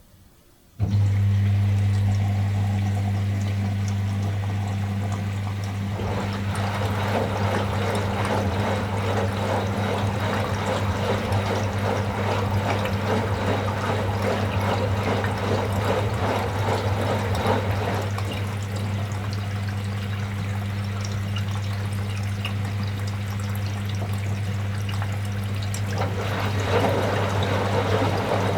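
Washing machine kicking in suddenly about a second in with a steady electrical hum and the sound of water rushing and splashing. The water noise grows louder from about six seconds in.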